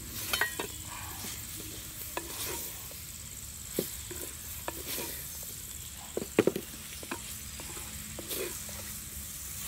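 Wooden spoon stirring raw prawns and vegetables in a clay pot over a wood fire, with irregular scrapes and knocks against the pot, the loudest about half a second in and around six and a half seconds in, over a soft sizzle.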